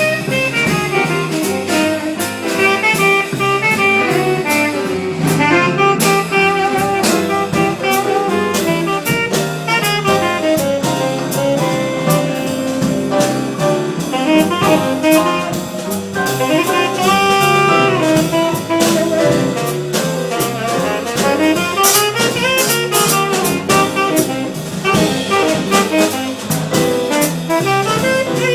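Live small jazz group playing an instrumental passage: a horn line moving over drum kit with steady cymbal strokes, with no vocal.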